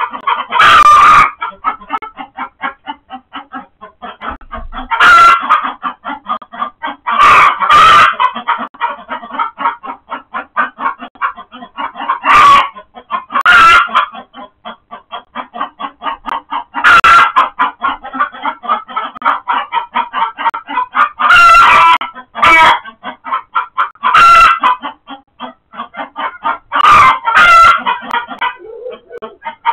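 Chickens giving rapid, continuous alarm clucking, broken every few seconds by loud, distorting squawks: alarm and distress calls as a mink attacks a hen in the coop.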